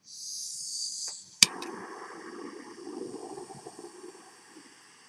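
Soldering torch being lit: about a second of gas hissing, a sharp click of the igniter, then the flame burning with a steady rush that slowly fades.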